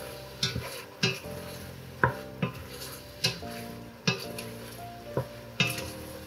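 A utensil stirring pieces of squid in a hot frying pan, knocking and scraping against the pan about ten times at uneven intervals, over a light sizzle.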